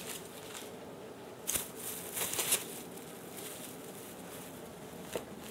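Handling noise: a short cluster of rustles and light clicks about a second and a half in, then a single small click near the end, over a faint steady background.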